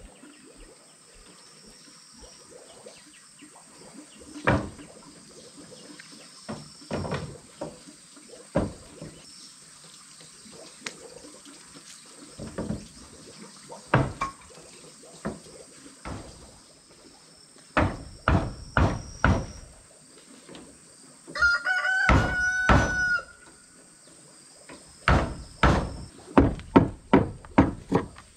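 Wooden boards knocking and clattering as they are handled and fitted. A rooster crows once about two-thirds of the way through. Near the end comes a quick run of sharp wooden knocks, about two or three a second, from a chisel cutting into a timber board.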